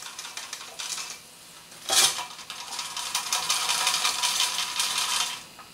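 Wire-mesh fry basket handled over an electric deep fryer: light metal clinks, a sharp knock of the basket against the pot about two seconds in, then a few seconds of dense crackling and rattling as the potatoes are tipped out of the basket into the fryer. The crackling stops about half a second before the end.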